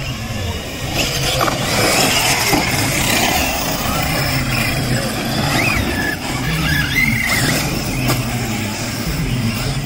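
Radio-controlled trucks racing on a track: motors whining up and down as they speed up and slow down, with continuous tyre and running noise. A few short rising-and-falling whines stand out around the middle.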